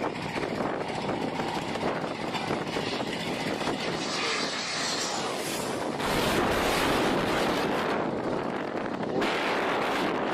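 Airplane engine noise as a plane comes in low to land, growing louder about six seconds in, with a brief dip near the end before it cuts off.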